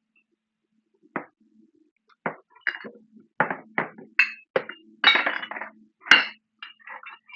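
Cutlery clinking against dishes while eating: a string of short, sharp clinks and knocks, some with a brief ring, coming irregularly from about a second in.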